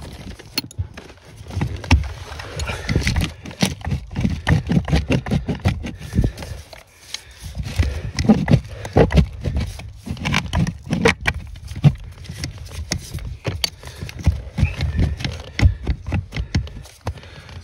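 Irregular knocking, tapping and rubbing as gloved hands work on the plastic clutch pedal assembly and its fittings under a car dashboard, close to the microphone.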